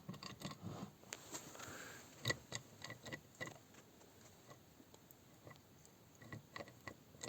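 Lada Niva transfer case centre differential being turned by hand: faint, irregular metallic clicks and ticks from its gears and housing as it is checked for free rotation after the housing bolts are torqued.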